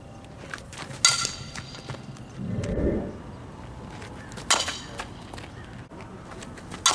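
Metal softball bat striking the ball three times, each hit a sharp ping with a short metallic ring, about three and a half and then two and a half seconds apart. A brief low rumble comes between the first two hits.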